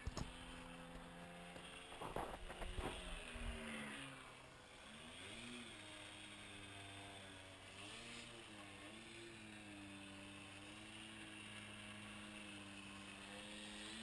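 Radio-controlled model Cub airplane flying overhead, its engine and propeller giving a faint, steady drone whose pitch dips and climbs again as it passes and changes throttle. A few knocks and rumbles near the microphone in the first three seconds.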